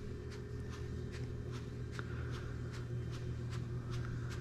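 Microfiber applicator block rubbing over a car's painted hood as ceramic coating is spread on, a run of faint quick swishes about four or five a second, over a steady low hum.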